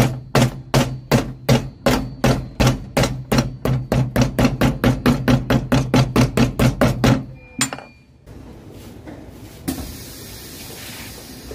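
Cobbler's hammer striking a freshly glued stacked leather heel on a shoe held in the hand, tapping it down to bond it to the sole. About thirty even blows that speed up from about three to about five a second, then stop about seven seconds in.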